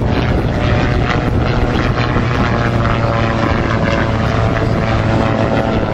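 Gyroplane's engine and pusher propeller droning steadily as it flies by, with a constant low hum under a few steady higher tones.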